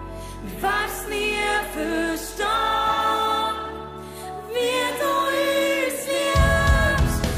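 Worship song: a singer sings a Swiss German lyric over band accompaniment, and a strong low bass comes in about six seconds in.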